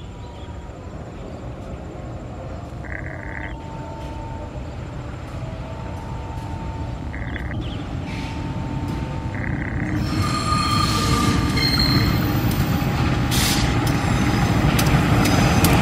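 Diesel-electric locomotive CC 201 hauling a passenger train, its engine rumble growing steadily louder as it approaches. From about ten seconds in, wheel squeal and clacking join as the train runs over the station turnout, and they keep getting louder.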